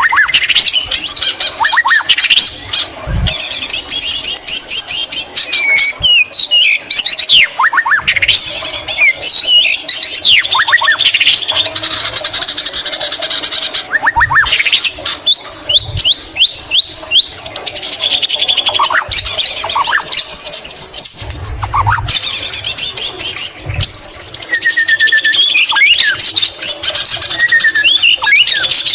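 White-rumped shama singing a long, non-stop, varied song of rapid trills and quick sweeping whistles, with phrases borrowed from the green leafbird's song.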